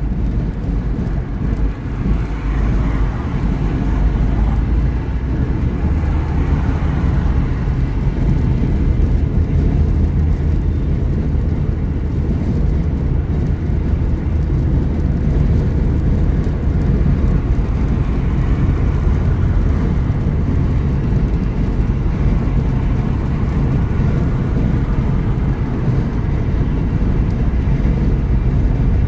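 Steady road and engine noise of a car cruising at freeway speed, heard inside the cabin as a constant low rumble.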